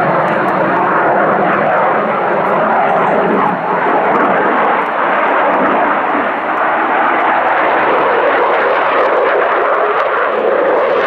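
Saab JAS 39 Gripen fighter's single Volvo RM12 turbofan, a loud, steady rush of jet noise as the aircraft dives and banks through a tight turn.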